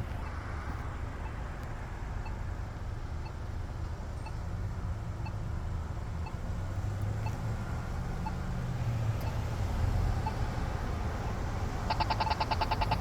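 Polara iNS accessible pedestrian signal push button ticking its slow locator tone about once a second over steady road traffic. About twelve seconds in, it switches to the rapid tick that signals the walk phase.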